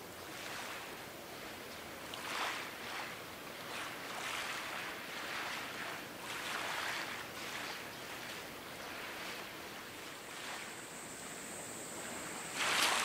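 Harbour water lapping and splashing against the quay in soft, irregular surges every second or two. From about ten seconds in a faint steady high whine joins, and a louder short rush of noise comes near the end.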